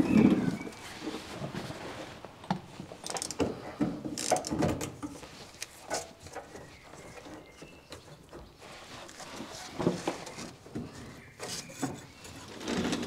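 Hand work under a Humvee: scattered knocks, clunks and rubbing as the drive shaft is handled and the fuel filler-neck hose and its clamp are worked loose. The loudest clunk comes right at the start.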